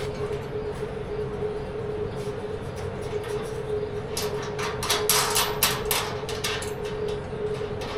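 Metal clicks and clanks from about halfway through, as the tailgate and its hinges are handled and unbolted from the pickup bed. Under them runs a steady mechanical hum with one constant tone.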